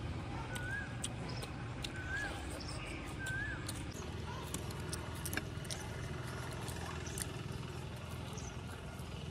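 A bird repeats a short whistled note about once a second for the first few seconds, over a steady low rumble, with scattered small clicks and smacks from eating.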